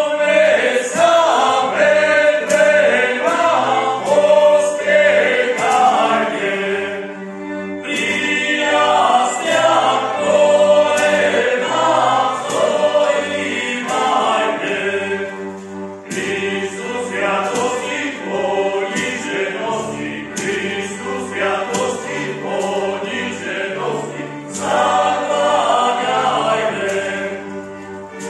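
A choir singing a Christmas carol in phrases over held low accompanying notes, with short breaks between phrases.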